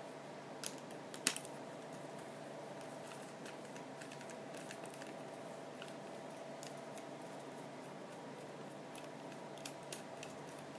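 Scattered small clicks and taps of a screwdriver and hard plastic parts being handled as a screw is undone from a toy ride-on car's wheel hub, with a few sharper clicks about a second in and again near the end. A faint steady hum sits underneath.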